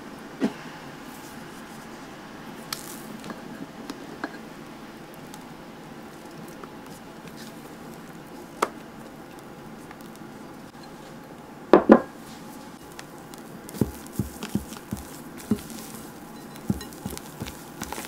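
Silicone spatulas tapping and scraping against glass mixing bowls while meringue is scooped out and folded into cocoa batter, with soft squishing of the batter. Scattered light taps, a sharp double knock about twelve seconds in, then a run of short taps near the end.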